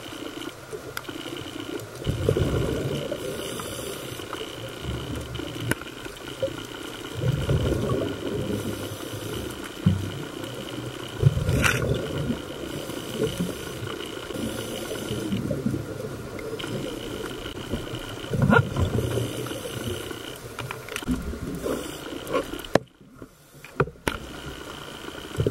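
Muffled underwater water noise picked up by a submerged camera: a low rumbling swash that surges every few seconds, with a faint steady high whine over it and a few sharp clicks. The sound briefly drops out near the end.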